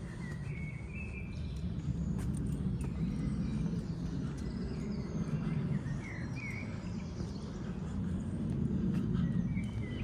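Outdoor ambience: a steady low rumble with a few short bird chirps, once about a second in, a couple between five and seven seconds, and again near the end.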